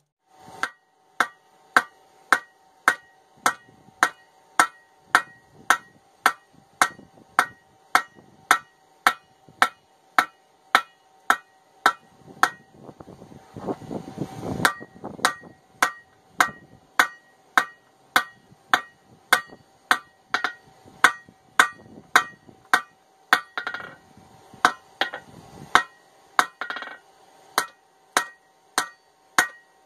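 Hand hammer striking a hot steel hammer head on an anvil, about two blows a second, each blow ringing with a clear steady anvil tone. It is the sound of drawing out the chipping end of an old ball peen hammer head.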